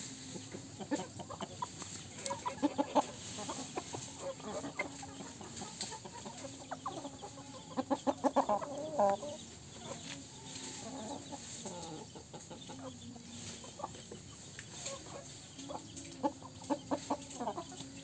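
Chickens clucking as they feed, with quick runs of clucks about two to three seconds in and again around the middle.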